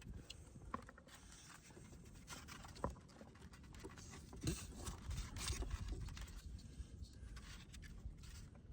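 Scattered clicks, light knocks and rustling from handling PEX tubing and fittings.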